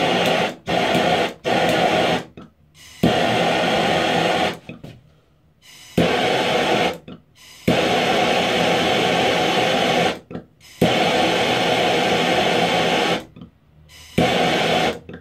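Hand-held propane torch flame hissing as it heats a small metal tin of candle wax, in repeated bursts of one to a few seconds that cut off sharply between them.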